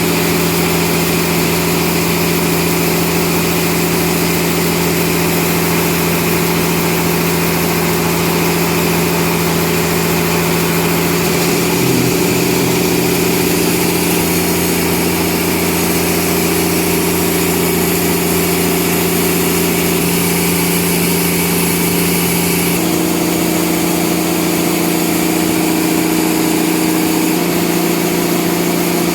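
Sawmill machinery running with a steady mechanical hum, its pitch shifting slightly about twelve seconds in and again about twenty-three seconds in.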